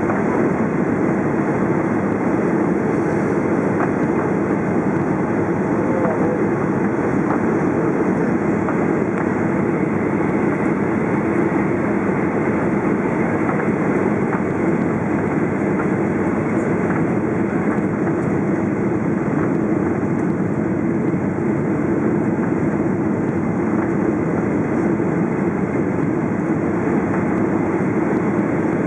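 Cabin noise of a Ryanair Boeing 737-800 on final approach: the steady roar of the engines and airflow heard from a seat over the wing.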